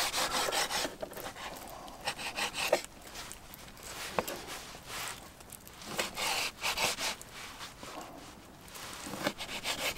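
Opinel folding knife slicing raw chicken on a wooden cutting board: repeated sawing strokes, with a few sharp taps of the blade on the board.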